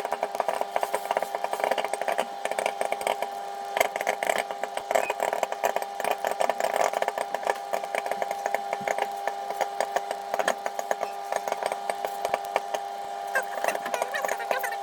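Microwave popcorn kernels popping in quick, irregular succession inside a running microwave oven, over the oven's steady hum.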